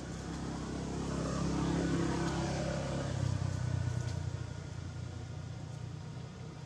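A motor vehicle passing by: its engine hum swells to its loudest about two seconds in, drops slightly in pitch, then fades away.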